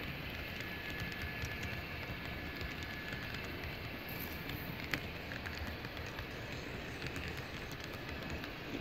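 HO-scale model covered grain hoppers rolling past on model track: a steady rumble of the cars' wheels on the rails, with scattered light clicks and one sharper click about five seconds in.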